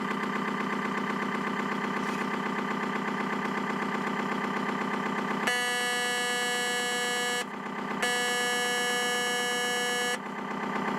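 An RC tugboat's electronic sound module playing a simulated diesel engine idling with an even, pulsing beat. Over it come two long steady horn blasts of about two seconds each.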